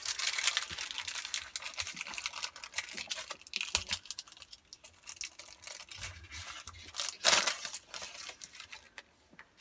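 A trading-card booster pack's wrapper being torn open and crinkled by hand, in a run of crackling rustles with louder tears near the start, just before four seconds in and at about seven seconds.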